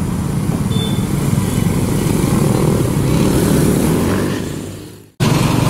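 Motorcycles and cars driving across a railway level crossing: a steady low engine and traffic rumble that fades out about five seconds in. After an abrupt break, another steady loud noise starts.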